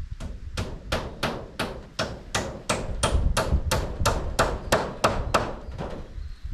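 Hammer driving a nail with a steady run of blows, about three a second, each with a short ringing tail, stopping near the end.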